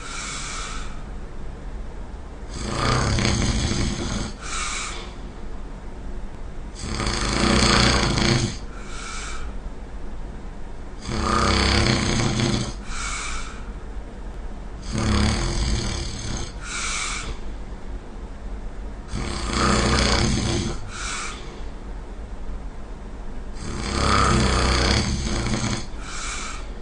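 A person snoring loudly in a steady rhythm: six long snores about four seconds apart, each followed by a shorter, higher breath sound.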